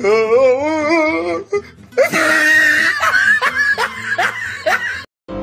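A person laughing hard: first a long, wavering high-pitched laugh, then rapid bursts of laughter that cut off suddenly near the end.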